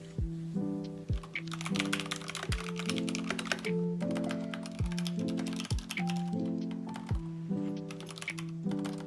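Background music with chords and deep kick drums. Over it, a computer keyboard is typed in quick runs of clicks, a long run a little over a second in and a shorter one near the end.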